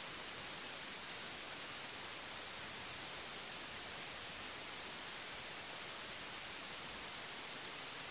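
Steady hiss like static, even and unchanging, with no other sound standing out.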